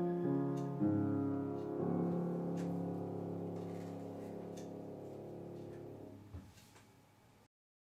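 Music: piano playing a few chords, the last one held and slowly fading away over several seconds before the sound cuts to silence near the end.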